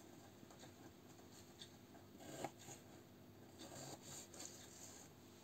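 Faint sounds of a knife dicing a pear on a plastic cutting board: a few soft taps of the blade on the board, the loudest about two and a half seconds in, and light scraping a little later.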